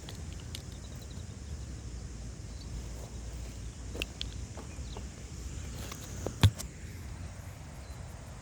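Wind rumbling on the microphone, with scattered small clicks and one sharp knock about six and a half seconds in.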